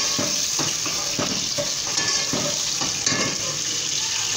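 Sliced onions sizzling in hot oil in a stainless steel pot as they are fried to brown. A steel ladle stirs them, scraping and clinking against the pot several times.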